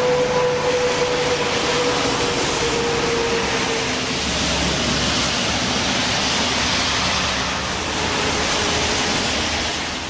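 Motorway traffic: a steady rush of passing vehicles, with one vehicle's pitch falling slowly as it goes by in the first few seconds. The sound begins to fade out near the end.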